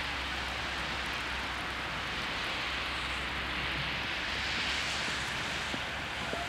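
Steady, even hiss of outdoor ambience during snowfall, with a faint low hum underneath.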